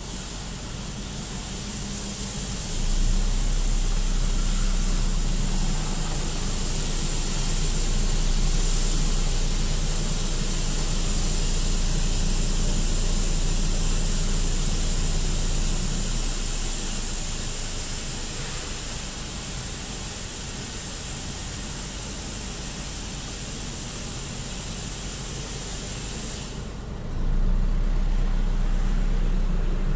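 Belanger FreeStyler automatic car wash running on a car: a steady hiss of water spraying over a low machine hum. Near the end the spray cuts off and a deeper machine rumble swells up.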